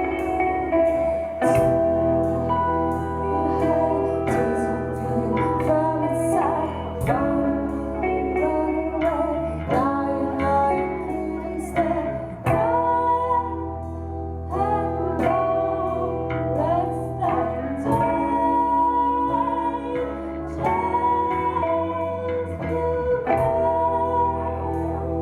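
A rock band playing: guitars and a sung melody over a steady bass line, with regular strummed and percussive strokes.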